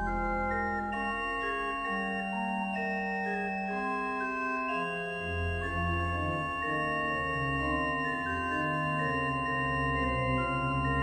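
A 1961 Karl Schuke pipe organ playing several voices at once in slow, long held notes, with a deep bass line under sustained upper parts.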